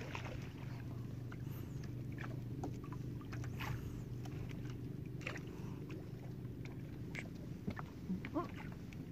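A small boat's engine running steadily at a low, even hum, with scattered light clicks and splashes from the handline and water on top.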